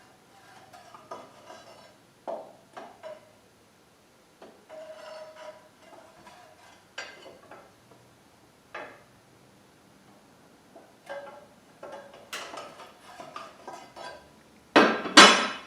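Metal parts and bolts of a portable bandsaw table being handled and fitted together: scattered clinks and knocks, some ringing briefly, with a couple of loud clanks near the end.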